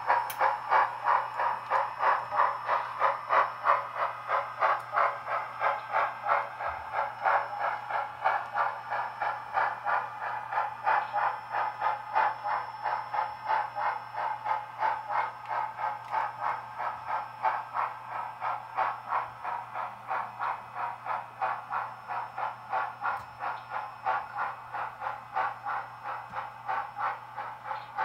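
Sound-equipped HO-scale model steam locomotive chuffing in an even beat of about three chuffs a second, slowly growing fainter as it runs away. A steady low hum lies underneath.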